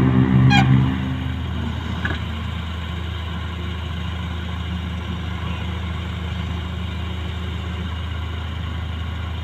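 Heavy diesel engine working under load at first, then settling about a second in to a steady idle. A brief squeal comes near the start and a single knock about two seconds in.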